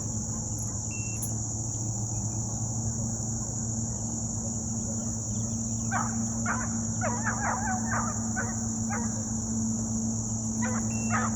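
Deer hounds barking in the distance in a quick run of short barks for a few seconds from about halfway through, again briefly near the end, over a steady high insect trill.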